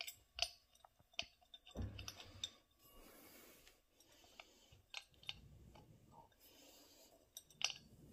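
Faint, scattered clicks and light knocks of metal hardware being handled on an air-ride suspension bag as its mount is fitted and a bolt is started by hand.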